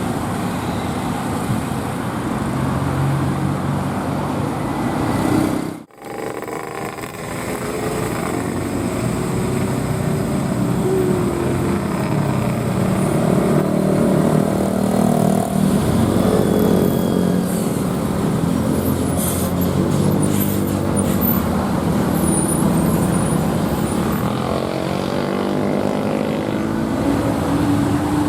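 Heavy road traffic passing, buses among it, their engines running with the pitch sliding as each goes by. The sound cuts out briefly about six seconds in, and a cluster of short, sharp high sounds comes about two-thirds of the way through.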